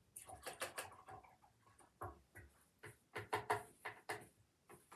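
A paintbrush handled at a ribbed pot and set down: a run of irregular light clicks and knocks, hard and close together, loudest about three to four seconds in.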